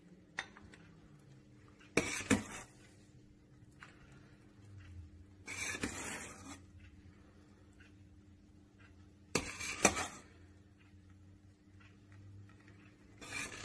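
Metal ladle clinking and scraping against a steel pot and the rims of terracotta bowls as thick rice pudding is ladled out, in four separate bursts a few seconds apart.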